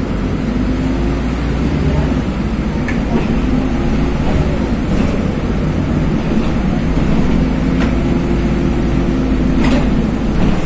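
Inside a LiAZ 5292.21 city bus driving along: a steady low engine and road drone that grows slightly louder, with a few faint clicks and rattles from the cabin.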